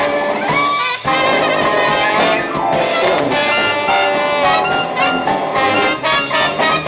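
Traditional jazz band playing a loud full-ensemble passage: clarinet, cornet and trombone playing lines together over piano, guitar, drums and sousaphone.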